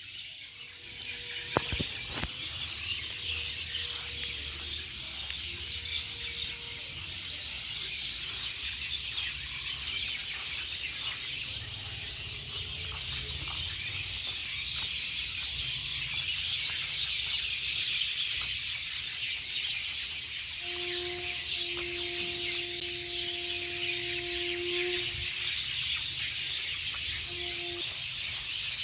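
Many birds chirping together in a dense, steady chorus over a low rumble. A steady tone sounds for about four seconds near the end, with a short repeat after it.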